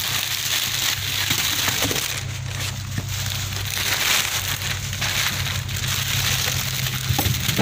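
Plastic bag around a frozen block of squid crinkling and crackling as it is handled and lifted out of the hold, over a steady low engine hum.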